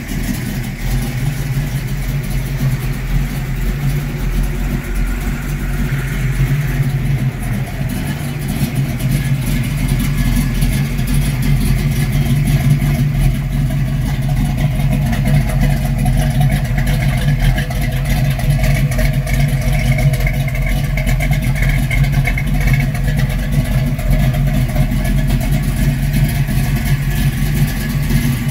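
1971 Mercury Cougar XR7's V8 engine idling steadily, a low, even exhaust note.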